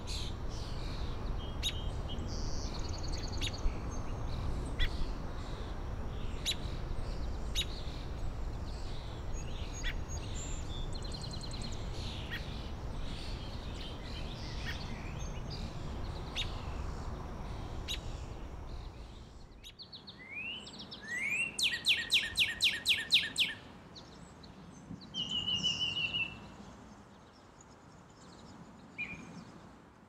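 Songbirds singing and calling over a steady low rumble, with short high notes scattered through it. About twenty seconds in, the rumble drops away and a loud, fast run of repeated song notes lasts about three seconds, followed by a couple of short trills.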